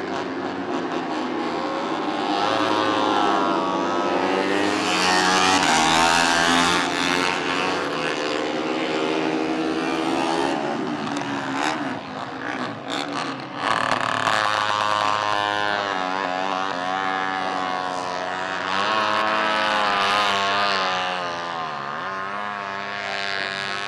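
Moto3 racing motorcycles' 250 cc single-cylinder four-stroke engines revving hard, several at once, their pitch climbing and dropping over and over.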